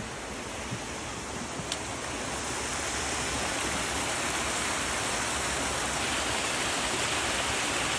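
Small mountain creek splashing down over rocks in a little cascade: a steady rushing of water that grows louder about two seconds in.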